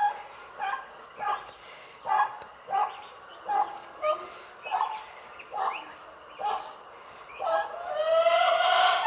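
A dog whimpering in short, regular yelps, about three every two seconds, then breaking into a longer, louder whining howl near the end.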